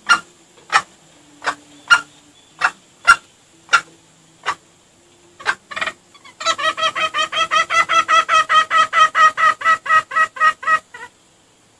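Junglefowl lure call: sharp single clucks about every two-thirds of a second, then, from about six seconds in, a fast run of clucks, roughly six or seven a second, lasting about four and a half seconds and stopping shortly before the end.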